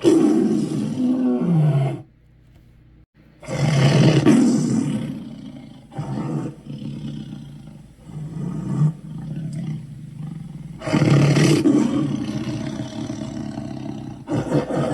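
Sweetums monster roars: a two-second roar whose pitch drops at the end, then after a short pause a loud roar that trails off slowly, then another about eleven seconds in, and a fourth starting near the end.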